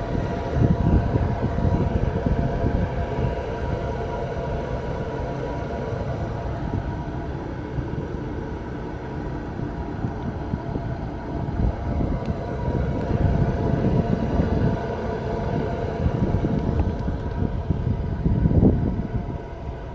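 Car on the move with a steady droning hum and rumble from a wheel bearing that has failed. The level swells and eases through the drive.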